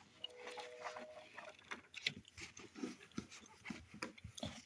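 Faint handling of a paperback book: pages flipping, with small taps and clicks. A short, faint steady whine sounds just after the start and lasts about a second.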